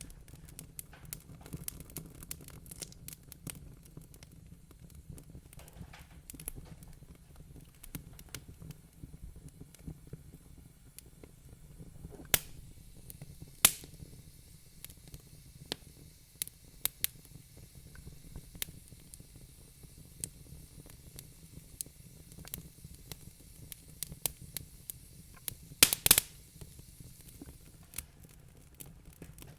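Wood fire crackling in a fireplace, a steady scatter of small snaps with occasional sharper pops: two louder ones about twelve and fourteen seconds in, and a quick cluster of pops a few seconds before the end.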